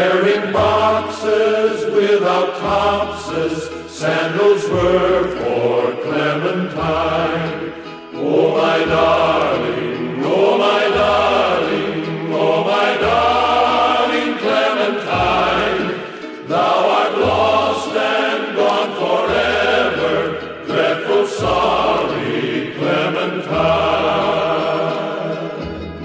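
Background music: a melody held over a slow bass line that changes note every second or two.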